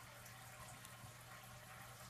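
Near silence: room tone with a faint steady low hum and hiss.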